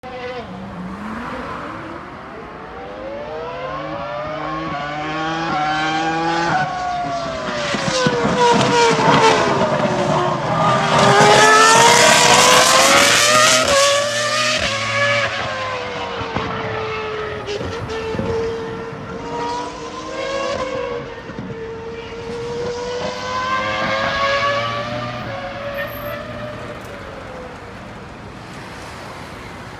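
Three-seater Formula 1 car's V10 engine at speed on the circuit, revving up through the gears in steps and dropping pitch on the downshifts. It is loudest as it passes about halfway through, then carries on lapping and fades near the end.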